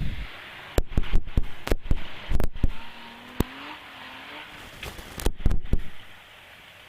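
Four-wheel-drive vehicle's engine revving on an off-road climb, its pitch rising and falling, among many sharp knocks and bumps that stop about six seconds in.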